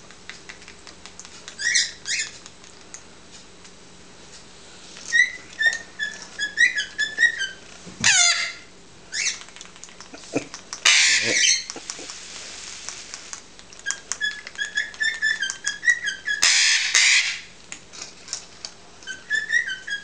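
Young Eclectus parrots calling while being spoon-fed, the food-begging calls of hand-reared chicks. Runs of short, quickly repeated chirping calls are broken by a falling call and two loud harsh squawks.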